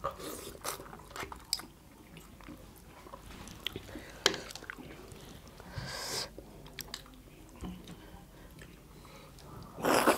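Close-up eating sounds of two people eating chicken curry and dhido with their hands: chewing and lip smacks with scattered small clicks, a brief hissy slurp about six seconds in, and a louder sucking slurp near the end as food is sucked from the fingers.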